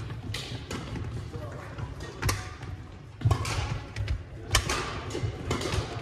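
Badminton doubles rally: rackets striking the shuttlecock in a string of sharp cracks, over thuds of players' footsteps on the hardwood court.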